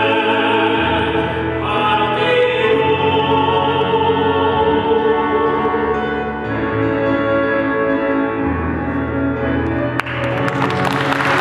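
Operatic tenor and a female singer singing a duet in classical style over instrumental accompaniment, with held, sustained notes. About ten seconds in the music ends and applause breaks out.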